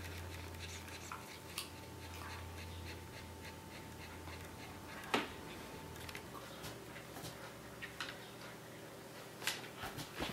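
Dog panting, with scattered faint clicks and one sharper click about five seconds in, over a low hum that stops a little before that.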